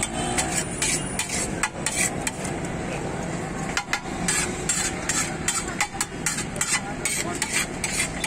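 Metal spatula clanking and chopping against a flat griddle in quick, irregular knocks, several a second, as eggs are cooked and chopped.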